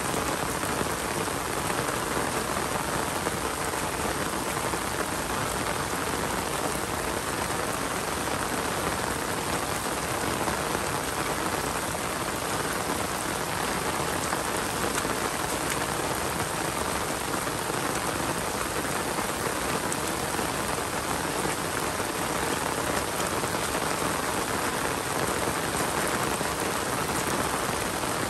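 Steady rain falling, an even hiss of drops that holds without let-up.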